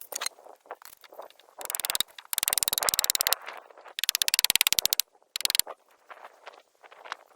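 A power tool driven in short bursts of about a second each, twice, with a rapid, even clatter, between smaller knocks and scrapes.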